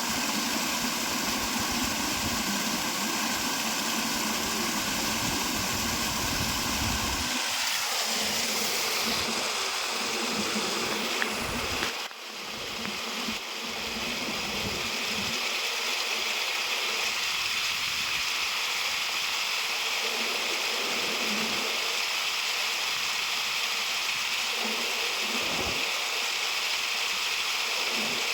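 Waterfall water rushing steadily. For the first seven seconds or so a low engine-like hum runs under it, then winds down with falling pitch. After a brief dip in level, only the rush of water remains.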